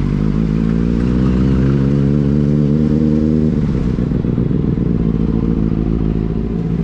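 Benelli 600i's inline four-cylinder engine running under way at steady revs; about three and a half seconds in the note drops and carries on steadily at lower revs.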